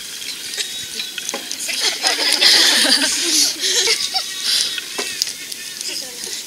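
Several people laughing, loudest and most breathy about two to three and a half seconds in.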